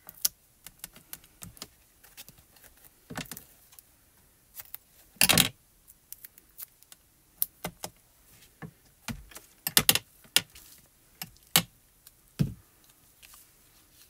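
Hands handling cardstock and pressing small squares of foam tape onto a die-cut paper flower on a craft mat: scattered light clicks, taps and paper rustles, with a few louder handling noises, the longest about five seconds in.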